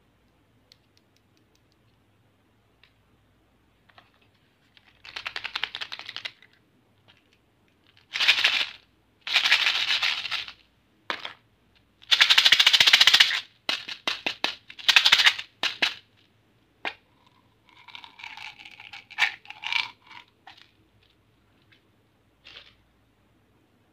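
A plastic candy wrapper crinkling and tearing open in several loud bursts, then small candy pellets rattling as they are tipped out of the packet into a hand.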